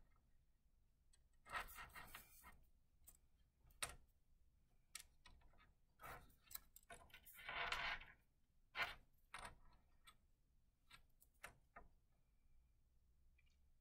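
Faint, scattered small clicks and soft rustles of hands pushing wooden toothpicks into marshmallows and handling the small frame, with one slightly longer rustle about 8 seconds in.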